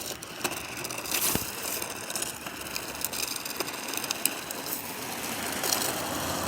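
Radio-controlled off-road car driving on a snowy sidewalk: a steady hiss of rolling tyres with a few sharp clicks and knocks, the strongest about a second and a half in.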